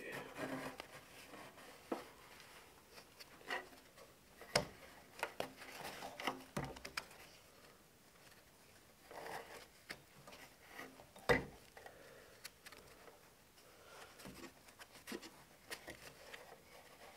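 A rubber V-belt being worked by hand onto a drill press's stepped pulleys: faint rubbing and scraping with scattered light clicks and knocks, the sharpest about four and a half and eleven seconds in.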